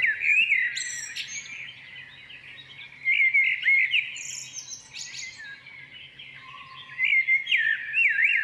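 Recorded birdsong: birds chirping and trilling in quick, varied phrases, louder at the start, about three seconds in and again near the end.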